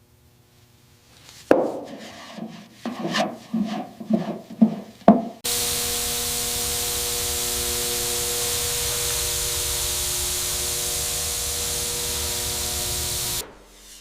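A few sharp knocks and scrapes of parts being handled, then a workshop tool runs with a steady hiss and hum for about eight seconds and stops suddenly near the end.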